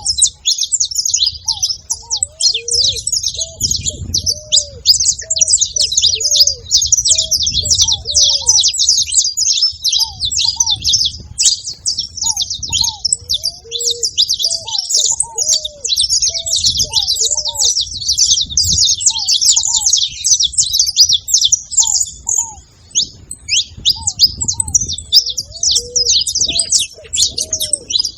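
Several saffron finches chirping and singing together in a dense, continuous chatter of quick high notes, with shorter, lower curved notes repeating underneath.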